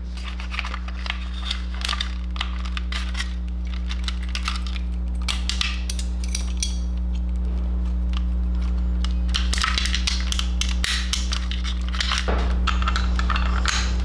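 Wiring harness leads and plastic connectors rustling and clicking as they are handled and pushed into a motorcycle headlight shell: a run of small irregular clicks over a steady low hum.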